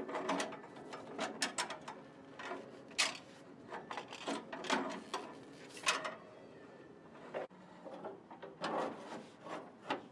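Irregular metallic knocks, clinks and short scrapes of tools and parts being worked by hand at the steering column mounting in a Ford Model TT truck cab.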